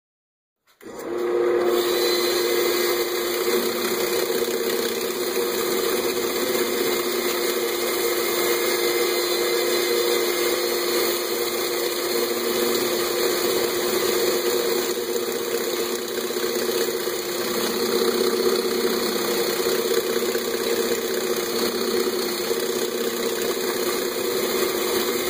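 Central Machinery wood lathe and a cordless drill running together, the drill's spinning sanding pad pressed against the turning bowl: a steady motor hum with a sanding hiss. It starts abruptly less than a second in.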